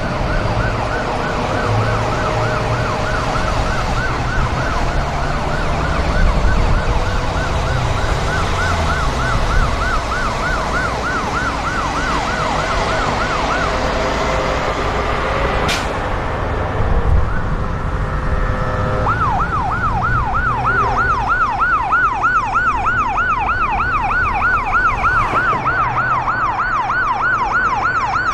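Ambulance siren in a fast yelp, warbling up and down about three times a second over a low vehicle rumble. It drops away for a few seconds around the middle, after a sharp click, and comes back louder.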